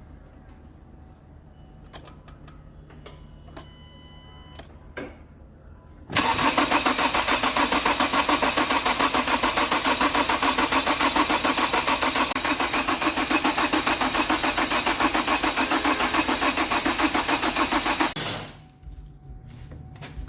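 Hyundai Creta engine being started after an overhaul. A few faint beeps come first. Then, about six seconds in, a loud, fast-pulsing mechanical noise begins abruptly, holds steady for about twelve seconds and cuts off.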